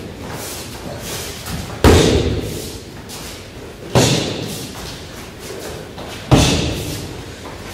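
Three backfist strikes of a boxing glove smacking a focus mitt, about two seconds apart, each echoing briefly in the hall.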